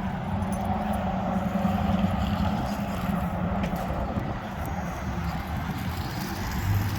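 A steady motor hum over outdoor background noise, strongest in the first three seconds.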